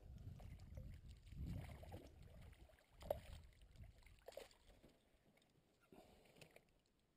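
Quiet canoe sounds: a low rumble of water and handling against the hull, with one sharp knock about three seconds in and a few lighter clicks after, fading toward the end.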